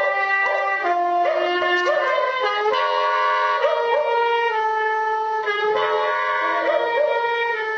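A dog howling in long held notes that step up and down in pitch, broken by short upward swoops. Two recordings of it play at once, heard through computer speakers.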